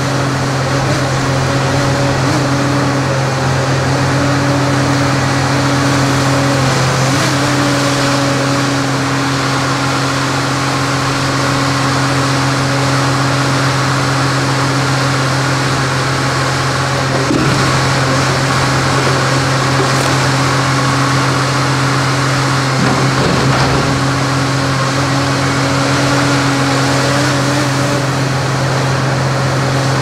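Steady mechanical hum at one constant pitch, with no revving or change in speed.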